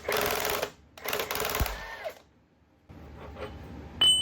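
Pneumatic impact wrench hammering in two short bursts, about half a second apart, on the bolts holding the axle's control arms. Near the end a single sharp metallic clank that rings briefly.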